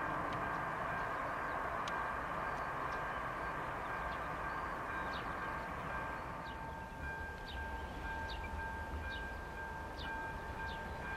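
Class 749 'Bardotka' diesel locomotive hauling a passenger train, heard from a distance: a steady engine drone with two held whining tones, and a low rumble that grows about seven seconds in. A row of short high chirps, about one and a half a second, runs through the second half.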